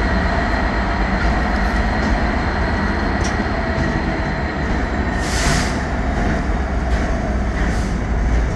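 Intermodal freight train's container flat wagons rolling past close by at steady speed: a continuous rumble of wheels on rail, with a brief hiss about five seconds in.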